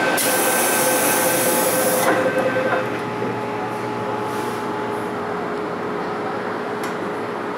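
MTR Tsuen Wan Line M-Train pulling away from a station platform. There is a loud hiss for the first two seconds or so, then the train's running noise as it gathers speed, with one steady whine.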